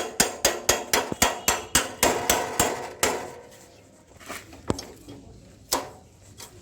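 Hammer tapping on metal, about four quick ringing blows a second, to drive the wheel collar into place on a motorcycle's rear axle. The tapping stops about three seconds in, and two single blows follow about a second apart.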